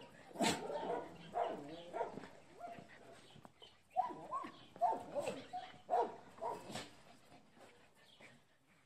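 Dogs barking and yipping in short bursts: a cluster in the first two seconds and another from about four to seven seconds in.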